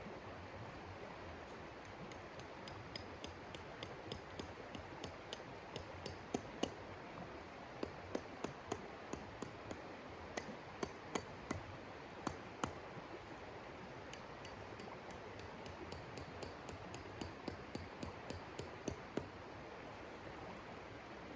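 Steady storm hiss with irregular clusters of sharp clicks and pops from a crackling wood stove fire, the loudest pops about six and a half seconds in and between eight and thirteen seconds in.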